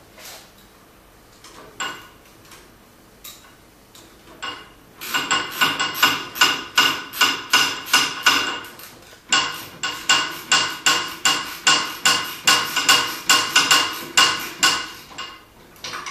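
Rapid rhythmic metallic clicking, about three a second, with a ringing tone in each click, from a hand tool tightening screws on the aluminium carriage of a CNC router gantry. A few scattered clicks come first, then the steady run starts about five seconds in and stops about a second before the end.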